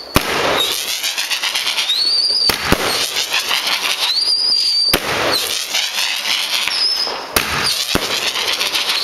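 Venom 16-shot 1.3G consumer firework cake firing: sharp bangs every couple of seconds, with high rising whistles between them over steady crackling from the bursts.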